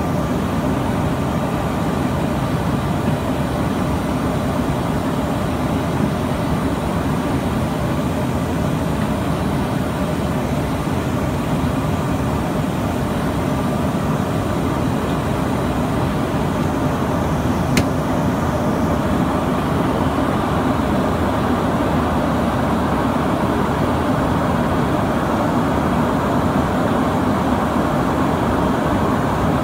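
Steady cabin noise of an Embraer ERJ-145 in its climb after takeoff: the drone of its two rear-mounted Rolls-Royce AE 3007 turbofans mixed with the rush of air. There is one brief click about eighteen seconds in.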